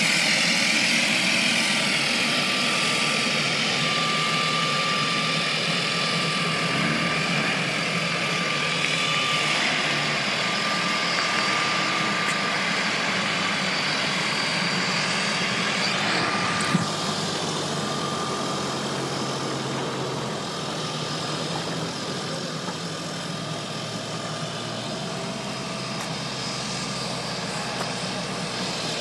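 Twin Otter's two PT6A turboprop engines running steadily with a constant whine, slowly fading as the aircraft taxis away. A single sharp click about 17 seconds in.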